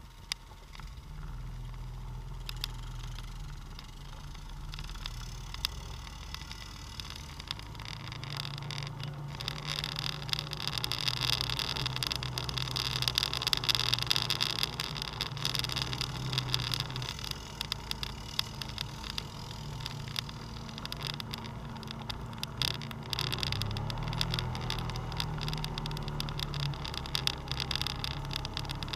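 ATV engine running at low trail speed, its note rising and easing with the throttle around a third of the way in and again later. A continuous rattling, rustling noise from the machine and its tyres on the rough, leaf-covered ground runs underneath.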